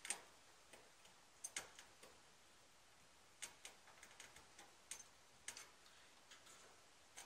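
Faint, irregular clicks and ticks of a hand screwdriver working a screw into the grille's mounting brackets, about a dozen small clicks spread unevenly.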